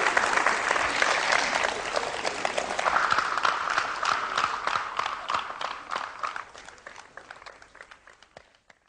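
Live audience applauding, the dense clapping thinning to scattered single claps and dying away near the end.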